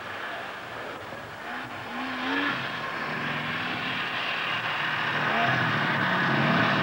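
Two-stroke snowmobile engines revving and running, with the engine note rising and falling about two seconds in, then a sled getting steadily louder as it comes closer near the end.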